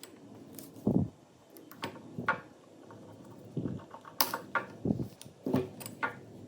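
Irregular knocks, thuds and sharp metallic clicks of heavy metal parts being handled and set down, about ten separate strikes.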